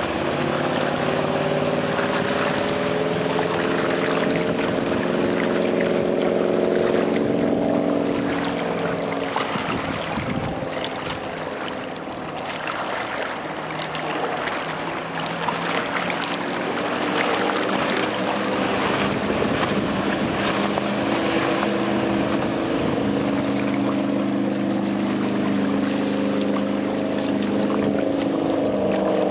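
2005 Tigé 21i wakeboard boat's inboard engine running at speed past the listener, with the hiss of spray from the hull. The engine note swells and then drops away about seven seconds in, fades for several seconds, and builds again as the boat makes another pass.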